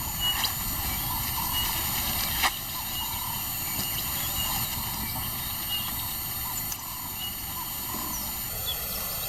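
Steady outdoor bush ambience, with faint short high chirps scattered through it and a single sharp click about two and a half seconds in.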